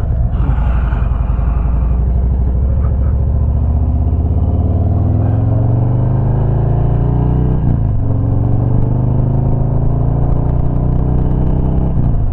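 Harley-Davidson motorcycle's V-twin engine pulling under acceleration, its pitch rising steadily, then a brief dip about eight seconds in as it shifts up, after which it runs at a steady lower pitch.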